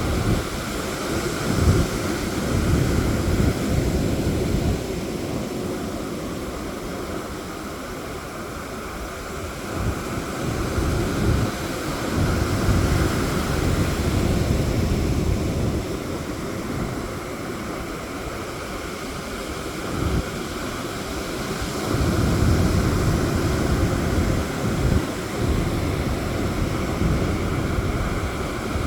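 Sea surf washing onto a sandy beach, swelling and easing every few seconds, with wind buffeting the microphone in low gusts.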